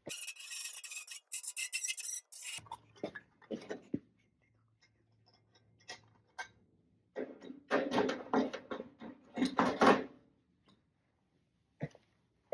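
Sheet-metal patch panel scraping and rubbing against the car's fender as it is handled and fitted, with scattered light knocks. A hissing scrape in the first two seconds or so, then a longer spell of scraping from about seven to ten seconds in.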